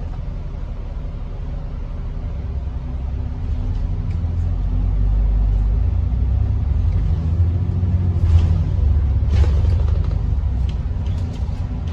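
Bus engine and road rumble heard from inside the bus, growing louder about three seconds in, with a few rattles or knocks near the end.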